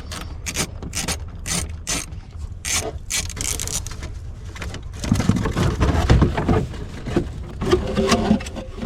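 Quick clicks and rattles of diesel heater ducting and fittings being handled and pulled apart. About five seconds in it turns into a denser, steadier scraping and rattling.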